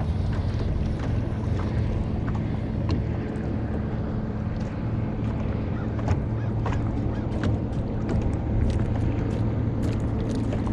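A boat motor running steadily with a low hum, with scattered small clicks and knocks over it.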